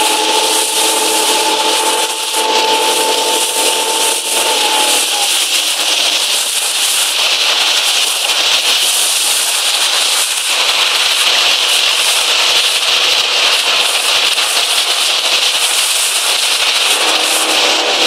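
Loud, steady rush of wind and spray noise from an RS800 sailing dinghy under way, crackling throughout. A steady whistling tone with overtones sounds for about the first four seconds, then slides down slightly and stops; a fainter one returns near the end.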